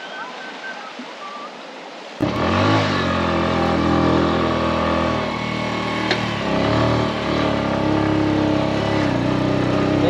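Rushing water of a river in flood, then, about two seconds in, an abrupt change to a motorcycle engine running on a rough dirt track, its pitch rising and falling with the throttle.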